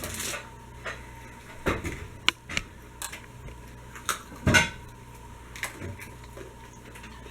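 Forks and dishes clinking on a table: a dozen or so scattered light taps and knocks, the loudest pair about four and a half seconds in.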